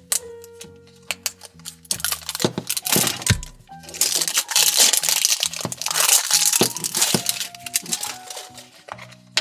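Plastic wrap of a LOL Surprise ball crinkling and crackling as it is peeled off and the ball's plastic shell is pulled apart, with sharp cracks about two seconds in and the crinkling loudest about halfway through. Background music plays throughout.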